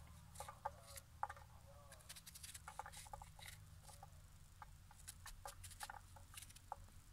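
Kitchen knife cutting through a raw onion held in the hand: a run of quick, irregular crisp clicks as the blade scores and chops the onion, with diced pieces dropping into a pot.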